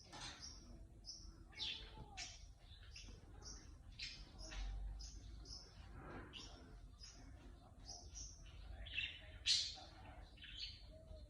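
A small bird chirping: a quick series of short, high, squeaky tweets, some sliding downward, with a louder chirp near the end.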